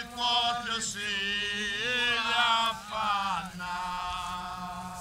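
A single voice singing a slow devotional chant in long held notes, phrase by phrase with short breaths between, fading toward the end.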